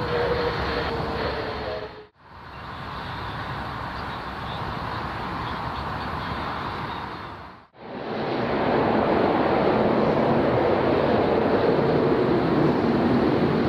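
A small twin-engine propeller plane running on its take-off roll, a steady rushing noise that is briefly cut off twice. About 8 seconds in, the louder, steady rushing noise of a Boeing 737's jet engines takes over as the airliner comes in to land.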